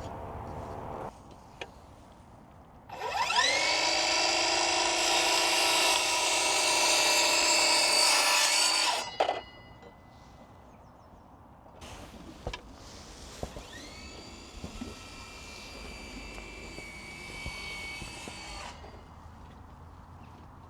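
A power tool's electric motor spins up, rising in pitch, and runs steadily for about six seconds before stopping. A few seconds later it runs again, quieter, for about five seconds. There are a few light knocks in between.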